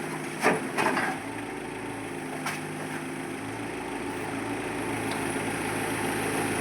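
Engine idling steadily, with a couple of sharp knocks about half a second to a second in and a lighter one at about two and a half seconds.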